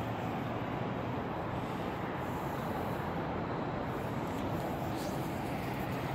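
Steady, continuous road-traffic noise from the highway bridge overhead, an even wash of tyres and engines with no single vehicle standing out.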